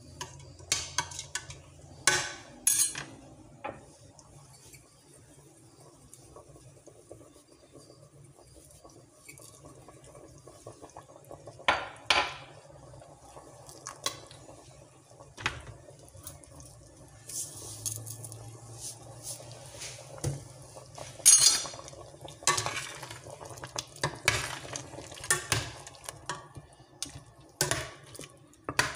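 A spoon stirring lamb in broth in a stainless steel stockpot, clinking and scraping against the pot. The clinks come scattered at first and more often in the second half.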